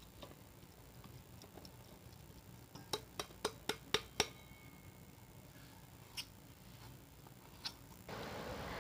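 A kitchen utensil tapped against a mixing bowl to knock powdered sugar out into the beaten eggs: a quick run of six sharp taps, about four a second, then two single taps a couple of seconds apart. A steady hiss comes in near the end.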